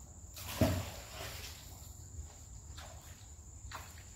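Riverbank ambience: a steady high insect drone with a few light scuffs on rocks, and one brief louder sound about half a second in.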